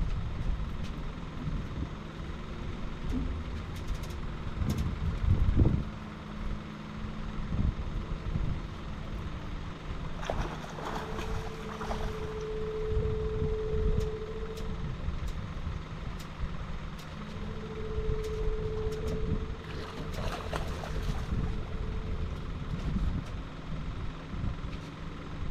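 Boat motor running with a steady low hum and wind on the microphone; twice a steady mid-pitched whine comes in and holds for a few seconds, about eleven and eighteen seconds in.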